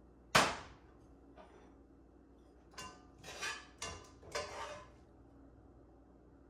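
One loud, sharp metal clank with a short ring. Then, over the next couple of seconds, several shorter clinks and scrapes of metal tongs in a skillet as cooked greens are lifted out into a bowl.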